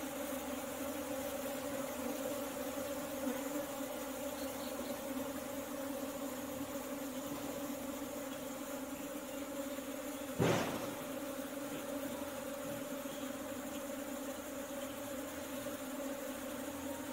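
Steady buzzing hum of a honeybee colony at a hive box, with one brief sharp knock about ten and a half seconds in.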